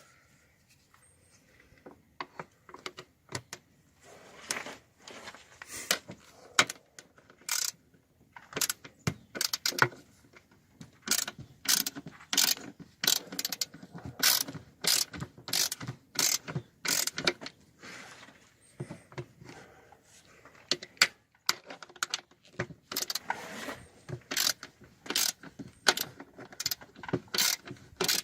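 Short-handled ratchet socket wrench clicking in repeated bursts as the handle is swung back and forth, backing out a stripped bolt with a bolt-extractor socket.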